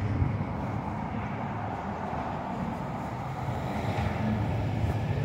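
Street traffic: a motor vehicle's engine running with a steady low rumble, growing a little louder near the end.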